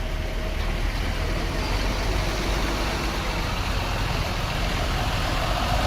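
Bus engine running with a low, steady rumble and road noise, growing slowly louder as it approaches.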